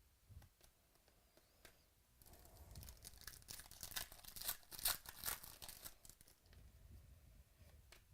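A trading-card pack wrapper being torn open and crinkled: a faint crackly rustle lasting a few seconds in the middle.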